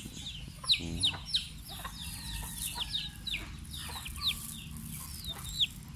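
Chickens calling: a busy run of short, high chirps that fall in pitch, several a second, with a few lower clucks. There is a louder call about three quarters of a second in and another near the end.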